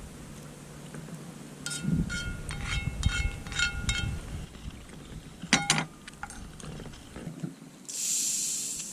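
Light metal clinking and rattling, with a sharp clink about halfway through, then a short hiss near the end.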